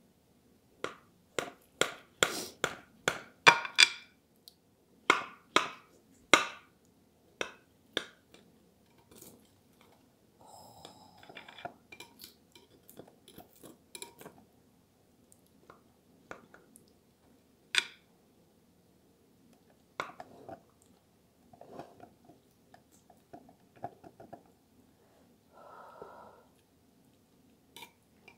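Serrated knife cutting into eggplant parmigiana and knocking and scraping on the bottom of a glass baking dish. It makes a quick run of sharp clicks over the first eight seconds, then softer scattered clicks with a short ring about eleven seconds in.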